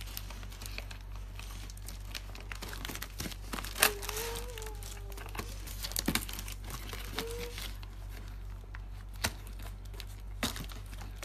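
Cardboard shipping box and its packing tape being cut and torn open with scissors: steady crinkling and tearing with scattered sharp snips and clicks.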